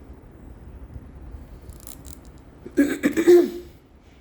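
Small plastic figure parts being handled and fitted together, with a short burst of clicking and rattling nearly three seconds in.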